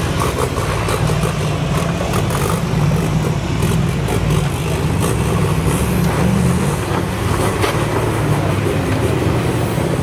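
Engine of a tube-frame 4x4 trial prototype running steadily under load as it climbs a rock slab, with scattered sharp clicks over the low engine note.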